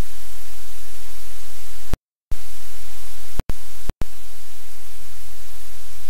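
Loud, steady hiss of electronic static over a low hum from a livestream camera's audio feed. It cuts out completely for a moment about two seconds in, and twice more for an instant a second or so later.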